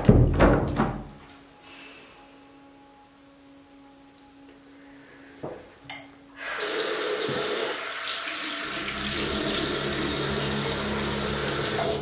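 A few knocks at the start, then quiet until a bathroom sink tap is turned on about halfway through, with water running steadily into the basin.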